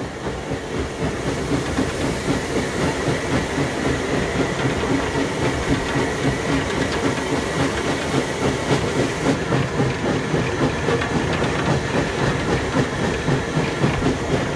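Steam locomotive running along the line, heard from its footplate: a steady, regular pulsing of the engine working, with wheels clattering on the rails.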